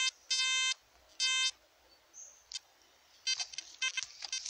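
XP Deus metal detector beeping: three flat, buzzy electronic tones in the first second and a half, a short one and then two longer ones. A run of shorter, quieter chirps and clicks follows from about halfway in.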